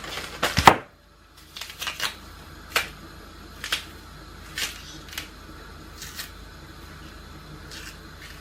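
Kitchen clatter: a loud knock about half a second in, then light taps and clicks roughly once a second.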